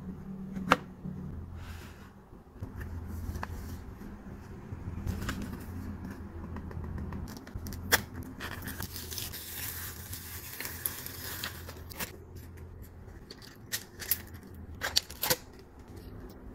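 Jelly squishy bear toys squeezed and handled by hand: scattered sharp sticky clicks and crackling over a steady low hum, with a longer stretch of crackle about halfway through.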